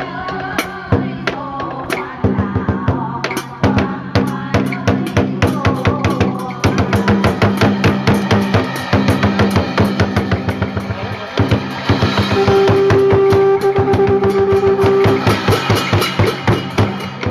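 Traditional Vietnamese water-puppet music: fast, dense drumming and percussion over melody instruments. About twelve seconds in, one note is held for nearly three seconds.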